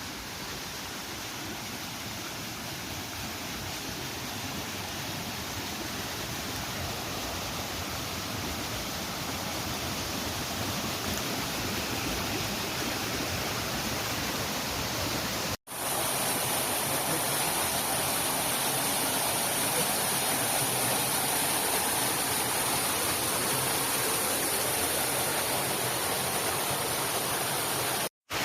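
Waterfall water pouring, a steady rushing roar. It breaks off for an instant about halfway through, then goes on a little louder.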